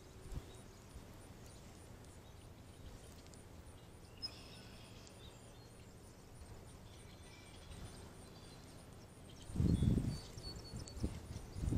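Quiet outdoor pond-side ambience with a few faint bird chirps about four seconds in. Near the end, two bursts of low rumbling wind buffet the microphone.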